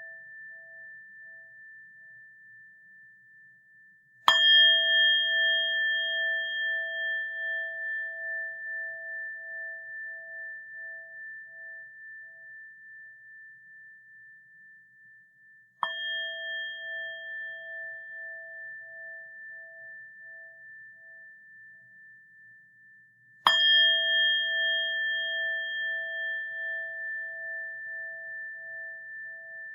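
A small bell struck three times, about four seconds in, near the middle and near the end. Each strike rings on in a clear, several-note tone that fades slowly with a pulsing waver, and the ring of an earlier strike is still dying away at the start. The middle strike is the softest.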